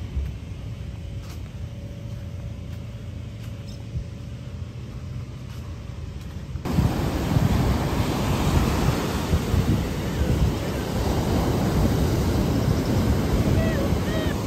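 Low wind rumble on the microphone. About six and a half seconds in, it changes suddenly to rough surf: heavy waves breaking and washing up the beach in a steady loud hiss, with wind buffeting the microphone.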